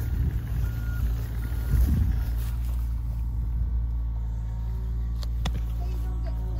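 A diesel engine running steadily, with two short high beeps about a second in.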